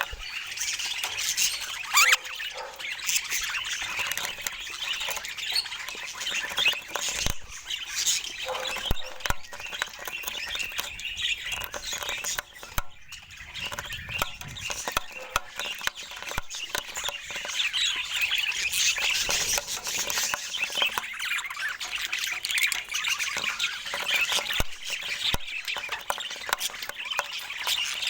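A group of young budgerigars chattering and squawking, many short high chirps and calls overlapping without pause except for a brief lull about halfway through.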